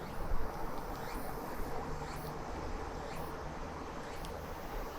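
Low steady background noise with a few faint, light clicks.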